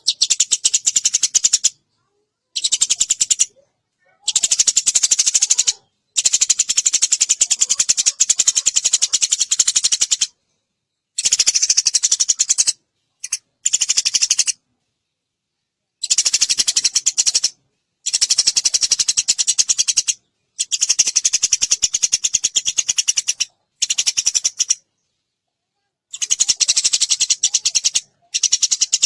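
Eurasian tree sparrow chirping very fast and densely, in bouts of one to four seconds that start and stop abruptly with dead silence between them.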